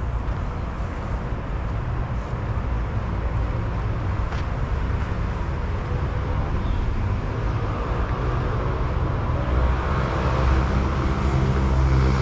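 Steady outdoor traffic rumble from nearby roads. It swells near the end as a vehicle draws closer.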